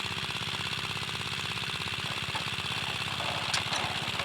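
12 hp Chinese single-cylinder diesel engine of a power tiller running steadily with a fast, even firing beat. A few sharp ticks come through about three and a half seconds in.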